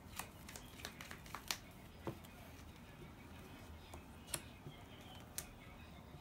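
Sleeved trading cards being handled and laid on a playmat: about ten light, irregular clicks and taps over a faint room hiss.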